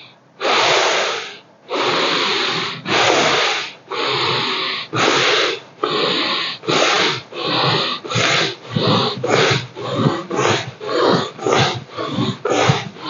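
A man breathing hard and forcefully in and out as a yoga breathing exercise, each breath a loud rush of air. The breaths start about a second each and grow steadily faster, to two or three a second near the end.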